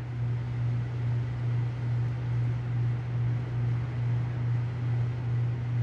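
Steady low hum with an even hiss, the room's background noise, unchanging throughout.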